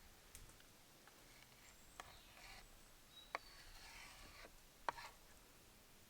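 Near-silent ambience broken by three sharp clicks or taps, about two, three and a half and five seconds in, with faint high chirping in between.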